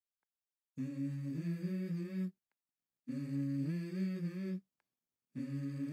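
Humming of a wordless melody in three short held phrases with silences between them, the opening of a pop song.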